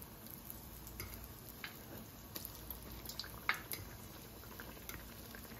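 Apple fritters frying in oil on medium-low heat: a faint sizzle with scattered small pops and crackles, the sharpest about three and a half seconds in.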